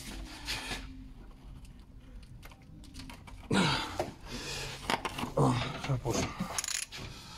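Metal clicks of a wrench working an inner tie rod removal tool on a car's steering rack, as the tight inner tie rod is being broken loose, with a man's low voice sounds over the second half.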